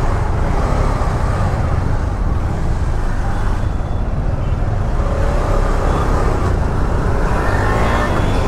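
Motorcycle engine running, heard from the rider's seat in slow city traffic, over a steady low road-and-traffic rumble.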